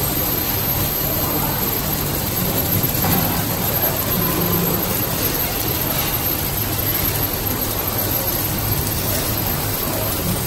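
Light-pole seam welding machine running steadily as the tapered steel pole feeds through it: a constant low hum with an even hiss over it.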